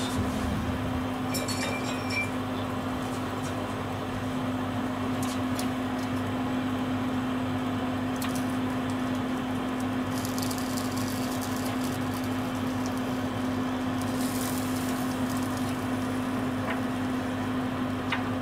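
Steady whir of a kitchen fan with a constant low hum, and a few light clicks as cooking chopsticks turn pieces of salmon on a wire grill rack.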